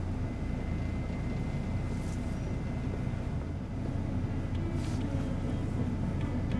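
Steady low rumble of a bus engine and running gear, heard from inside the moving bus's cabin, with a faint thin high whine through the first half.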